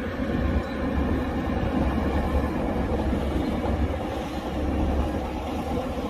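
Heavy diesel earthmoving machinery working, a steady deep engine rumble with a rattling mechanical noise over it.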